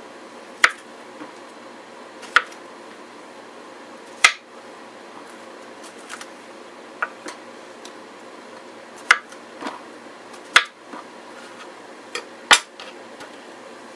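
Kitchen knife cutting through zucchini and striking a bamboo cutting board: sharp, separate knocks at an uneven pace, a second or two apart.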